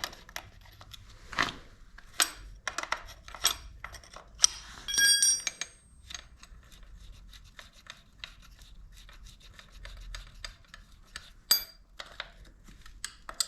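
Hand tools working on a motorcycle's countershaft sprocket to loosen it: irregular metal clicks and scraping, with a short ringing metal clink about five seconds in.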